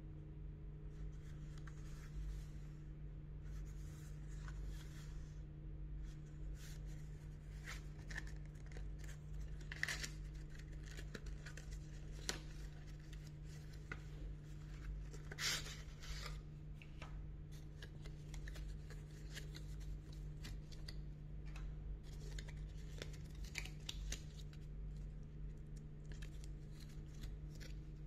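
Cardboard packaging box being handled and opened by hand: flaps and paperboard rustling, scraping and sliding as the padlock and its insert are pulled out, with a few sharper clicks and taps. A steady low hum runs underneath.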